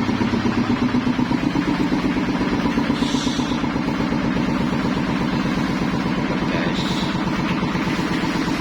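Engine-driven corn-flake processing machine running steadily, with a fast, even pulse.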